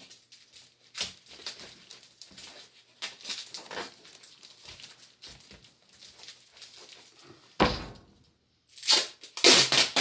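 Soft handling rustles and clicks, then near the end duct tape ripped off the roll in a few loud, crackly rips.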